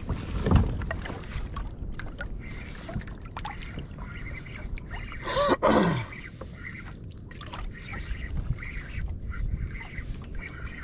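Fishing from a kayak: a spinning reel winding in a fish hooked on a jig, with scattered small knocks and splashes over a steady low rumble. About five and a half seconds in comes a single loud call that falls sharply in pitch.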